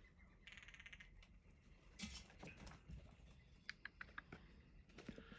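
Downy woodpecker hammering on a tree, faint: a quick rapid drum roll about half a second in, then scattered single taps.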